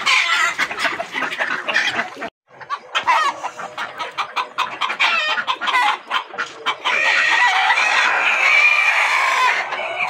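A large flock of Sonali chickens, roosters among them, clucking busily with many overlapping short calls. The sound cuts out for an instant about two seconds in, and a longer drawn-out call sits over the clucking in the last few seconds.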